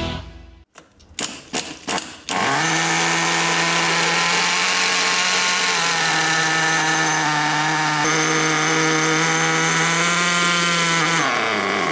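Small nitro glow engine of an RC monster truck catching after a few brief sputters, then running at a steady high-pitched buzz. Near the end the revs creep up and then fall away as the engine dies: a fuel-line pinch test, where a short rise before quitting shows the low-speed needle is set about right.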